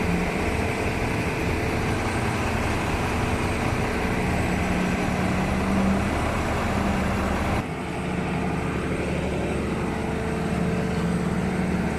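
Excavator's diesel engine running steadily with a low hum, over construction-site noise. The sound changes abruptly about seven and a half seconds in, the higher part dropping away.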